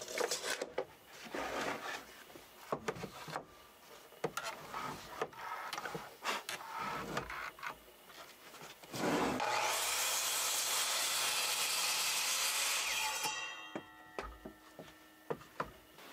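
Wood being handled and rubbed or scraped in irregular strokes and knocks. Then a power tool runs on wood for about four seconds and winds down.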